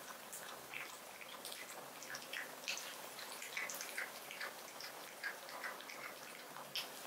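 A cat licking and lapping raw egg yolk from a plate: a run of small, irregular wet clicks and smacks, a few a second.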